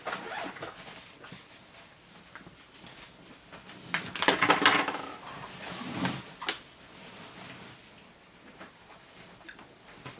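Climbing gear and bags being handled and packed: rustling of fabric and scattered clicks, with a louder burst of rustling and clattering about four seconds in and a smaller one near six seconds.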